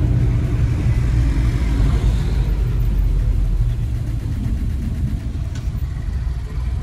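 Steady low rumble of a small car's engine and road noise heard from inside the cabin, easing a little about four seconds in.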